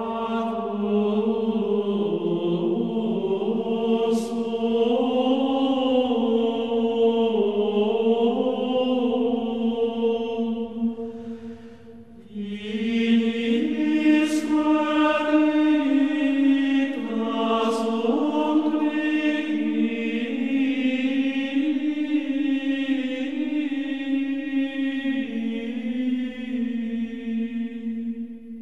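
Choir singing slow chant in long sustained notes that move step by step, in two phrases with a short pause about twelve seconds in.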